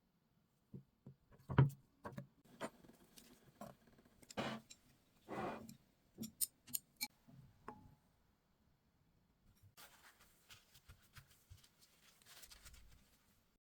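Kitchen food-prep handling sounds: a string of clicks and knocks, the loudest about one and a half seconds in, with two longer scraping rustles near the middle, then faint rustling and ticks near the end.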